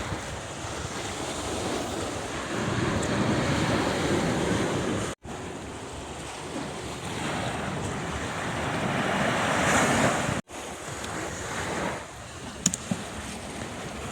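Sea surf washing and surging, with wind buffeting the microphone; the sound cuts off abruptly twice, and a couple of sharp clicks come near the end.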